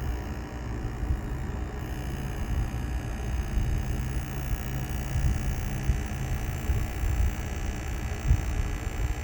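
HTC Vive base station (Lighthouse) buzzing: a steady low hum with a faint, slightly uneven rumble. This is the fault noise the unit is being repaired for.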